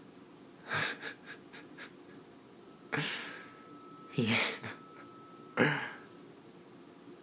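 A man's shaky, sharp breaths and gasps: four noisy intakes spread over several seconds, the first followed by a few quick, catching breaths.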